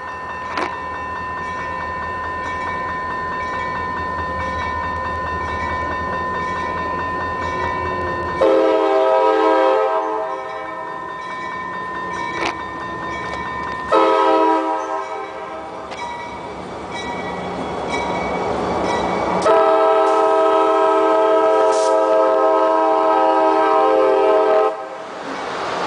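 CSX diesel locomotive's air horn sounding three chord blasts as it approaches: two short, then a long one of about five seconds. Near the end the locomotive and its geometry cars pass close by with a rush of wheel-on-rail noise.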